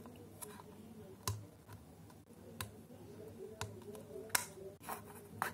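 Sharp, irregular clicks and taps from a small cosmetic jar being twisted and handled in the hands, about eight over a few seconds.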